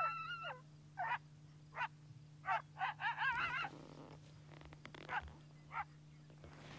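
Coyote barking and howling: a wavering howl that trails off about half a second in, then a string of short yips and barks with a quavering howl around three seconds in, and two fainter barks later.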